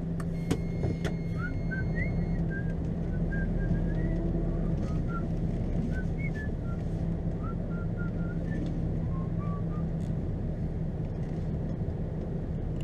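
Lorry's diesel engine idling steadily, heard from the cab. Over it, someone whistles a tune in short notes that hop up and down.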